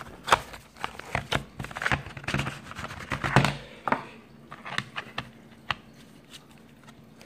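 Hands unpacking a US Mint proof set: the clear plastic case and foam insert being lifted, shuffled and set down, making a string of light taps, rustles and scrapes. The handling is busiest in the first few seconds, then thins out to occasional soft clicks.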